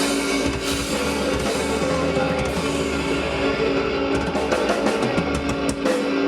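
Live blues band playing an instrumental stretch, with long held notes over drums and cymbals.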